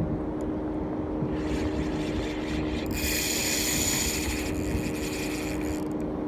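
A steady engine drone with a constant low hum, overlaid by a hissing rush that swells and fades several times, loudest about three to four and a half seconds in.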